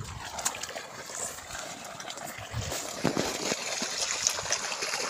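Irrigation water trickling along a furrow between sugarcane rows, a steady running sound with a few light knocks.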